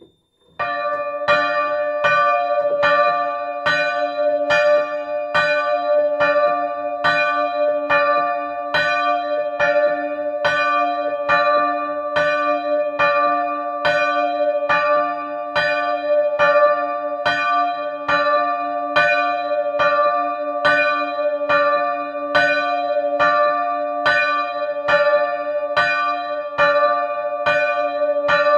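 The tower's two church bells, a 79 cm Feniks Žalec bell (2004) tuned to B and a 61 cm Luigi Magni bell (1929) tuned to D, swung together in full ringing. They start about half a second in, and their clapper strokes fall about two a second in an uneven pattern over a continuous ringing hum.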